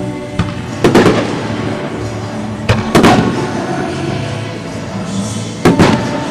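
Aerial firework shells bursting with sharp bangs in three clusters, about one, three and six seconds in, each trailing into a low rumble, over the show's music playing steadily.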